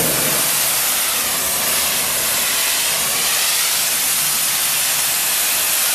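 High-pressure water jet from a 600-bar wet-blasting machine spraying against a steel tank and stripping its paint: a steady, loud hiss of the jet on the metal.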